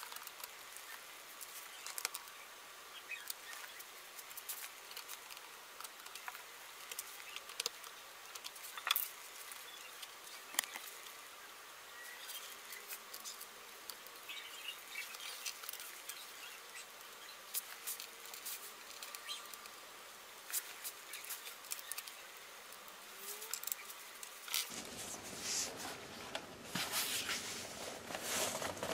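Scattered small clicks and taps of a screwdriver driving screws into a laptop's base cover, sped up about five times. Near the end the clicks turn denser and heavier as the laptop is handled and turned over.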